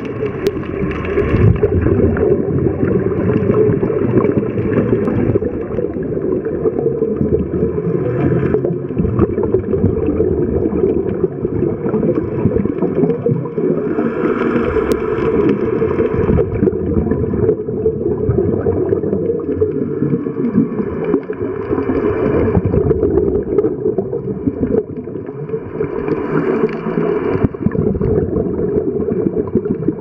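Underwater sound: a steady low rumble with bursts of scuba regulator exhaust bubbles every six or seven seconds.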